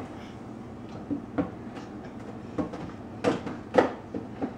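Scattered knocks and clatters of food containers being handled and set down in an open refrigerator, with the two loudest knocks close together a little past the three-second mark.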